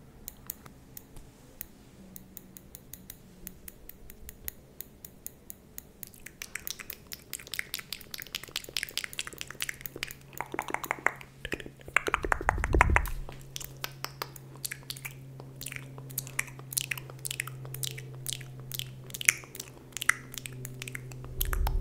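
Close-miked ASMR mouth sounds: a rapid run of short wet clicks and smacks, sparse at first and thickening after the first few seconds, with a low thump near the middle and another at the end.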